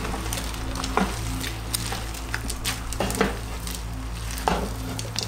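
Spatula stirring a thick lentil and sweet potato curry in a pot over a light sizzle, with scraping and several sharp knocks against the pot.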